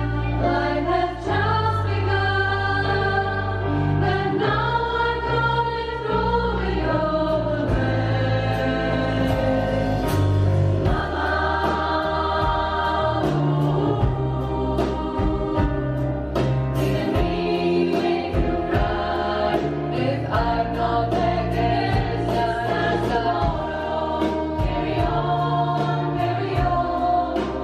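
Women's choir singing in several parts with live band accompaniment: keyboard, a bass line moving under the voices, and light percussion strokes.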